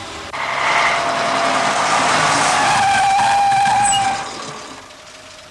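Bus braking to a stop: a long loud hiss that starts suddenly, with a faint squeal near its end, dying away after about four seconds.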